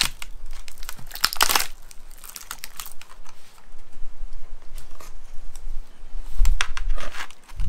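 Parts of a dismantled iPad being handled and worked apart by hand: irregular small clicks, crinkling and scraping, with louder bursts about a second and a half in and near the end.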